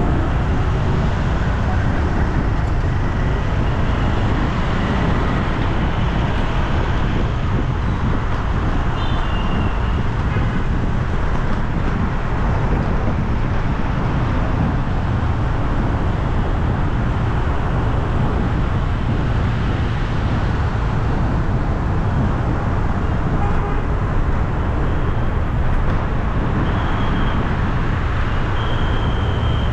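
Steady road traffic noise: a continuous rumble that holds an even level throughout.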